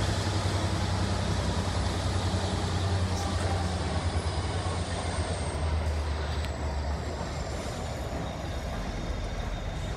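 Class 66 diesel-electric locomotive's two-stroke V12 engine running with a deep, steady throb as it pulls its hopper wagons away, growing quieter about halfway through. A faint high tone slides down in pitch near the end.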